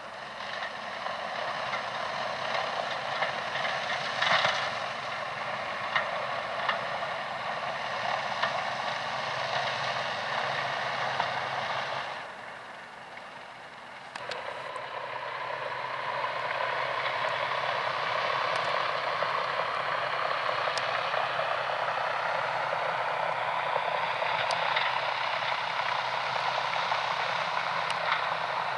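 John Deere tractor running steadily as it pulls a loaded Shelbourne Reynolds spreader through a wet field, with the rattle and clatter of the spreader's working parts and occasional sharp knocks. The sound drops away for a couple of seconds about twelve seconds in, then comes back fuller and holds steady to the end.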